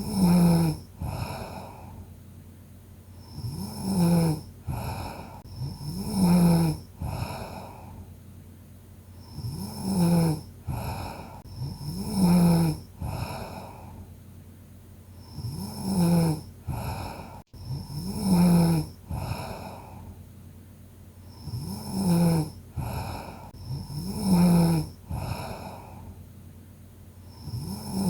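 A sleeping person snoring: each loud, low, buzzing snore is followed by a softer breath. The snores come in pairs about two seconds apart, and the pattern repeats roughly every six seconds.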